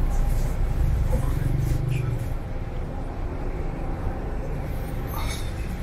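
City bus engine and cabin rumble heard from inside the bus: a steady low drone, a little louder in the first two seconds.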